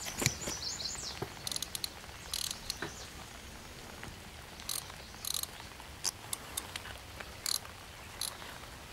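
Fishing tackle being handled: scattered short clicks and scrapes from the rod and reel as the line is worked, with a brief high chirp in the first second.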